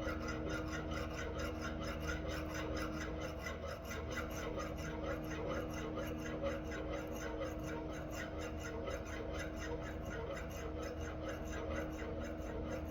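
Rapid, even rasping strokes, about three to four a second, of a hand file or rasp being worked back and forth, over a steady low hum.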